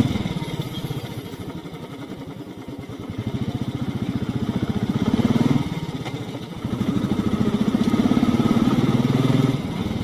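Royal Enfield Classic single-cylinder motorcycle engine running at low revs in a fast, even beat while riding a rough off-road track, the throttle eased off and opened again: quieter for a couple of seconds near the start and again briefly just past the middle, louder in between and toward the end.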